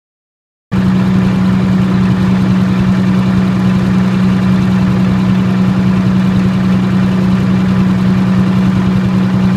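Diesel generator set running steadily on diesel fuel alone, with a strong, even hum. The sound starts abruptly about a second in and cuts off abruptly near the end.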